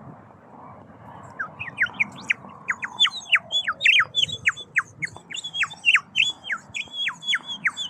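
A whistling gadget sold as a 'bullfinch' gives a rapid string of short, sharp whistles from about a second and a half in, about three a second. Each whistle falls steeply in pitch, and some are held briefly at the top before dropping.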